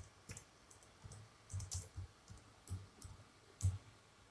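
Computer keyboard being typed on, an irregular run of faint key clicks as a name is entered.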